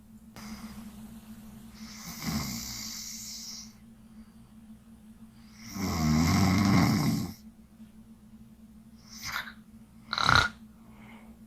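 A sleeping woman snoring: a breathy breath about two seconds in, then one loud, low snore lasting about a second and a half around the middle, and two brief sharp snorts near the end.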